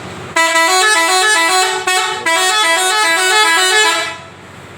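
Telolet horn, a multi-tone musical bus horn, playing a quick tune of stepping notes. It plays in two phrases with a short break about two seconds in, and stops about four seconds in.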